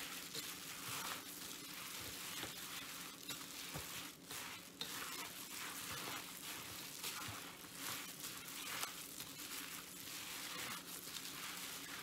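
A hand mixing moist dumpling filling of minced cabbage, carrot, zucchini, mung bean noodles and plant-based meat in a stainless steel bowl: a continuous rustling, broken by many short sharper ticks.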